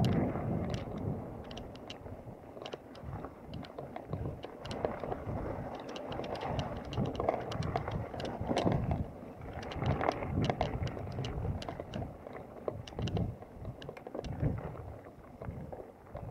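Mountain bike rolling over a leaf-strewn dirt trail: uneven tyre rumble with wind buffeting the microphone and frequent sharp clicks and rattles from the bike.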